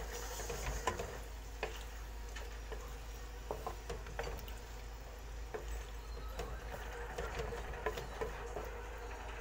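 A spatula stirring and scraping a stir-fry of chicken, green beans and carrots in a non-stick wok, with irregular light knocks and scrapes of the spatula against the pan over a soft sizzle of the food cooking in its sauce.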